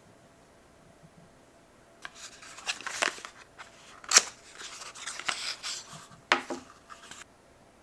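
Thin cardboard box and paper packaging of a skincare product handled and opened: rustling and crinkling with a few sharp snaps, the loudest about four seconds in. It starts about two seconds in and stops abruptly near the end.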